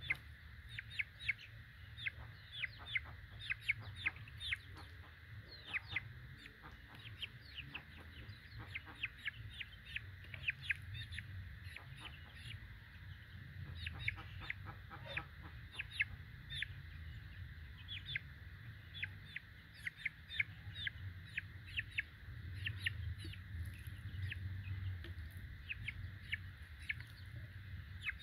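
Young Bangkok gamefowl chick peeping over and over: short, high, falling peeps, sometimes several a second, as it is held and washed.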